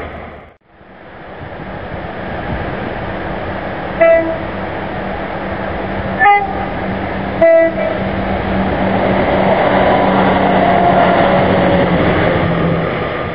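Class 170 Turbostar diesel multiple unit approaching and passing, sounding its two-tone horn in three short blasts, low, high, low, about four, six and seven and a half seconds in. Its engine hum and wheel noise grow louder as it passes close near the end.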